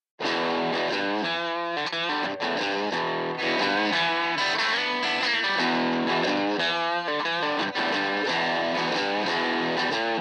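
Distorted electric guitar playing a bluesy lead part with bent notes, compressed through a UAD 1176 FET compressor plugin. It starts a moment in, after a brief silence.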